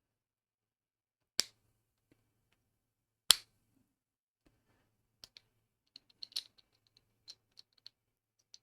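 3D-printed plastic parts clicking and snapping as the printed jaw is worked and clipped into the rattlesnake's head: two sharp snaps, about a second and a half and three seconds in, then a run of lighter clicks.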